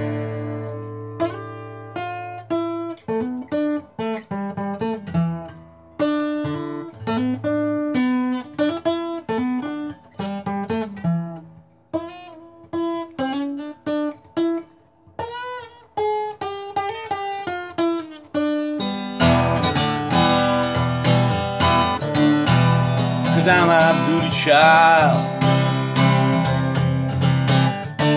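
Acoustic guitar played solo: a picked single-note melody, then about two-thirds of the way through it breaks into louder, fuller strumming.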